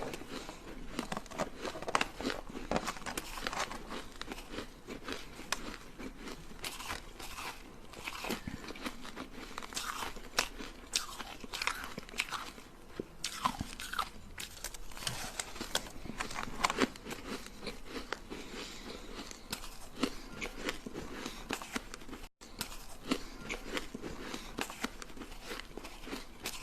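Hard ice sticks being bitten and chewed: repeated sharp, irregular cracks and crunches as the ice breaks between the teeth.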